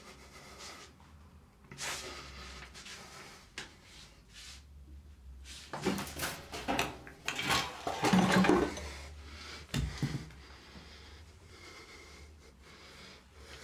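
Irregular rustling, shuffling and light knocks of people moving in a small tiled room, densest about six to nine seconds in, with a sharp knock near ten seconds, over a steady low hum.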